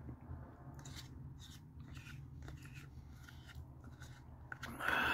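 Soft mouth sounds of a person eating Greek yogurt from a spoon: faint lip smacks and swallowing, with a louder breath near the end.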